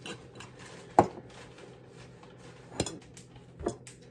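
Sharp clinks of a glass cup and metal straw being handled: one loud knock about a second in, then two lighter ones near the end.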